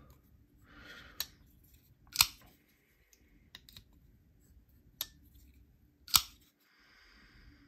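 Mallery Designs Phorus folding knife worked by hand just after its pivot was retightened: a handful of sharp metallic clicks as the blade opens and closes, the loudest about two seconds and six seconds in, with faint handling rustle between.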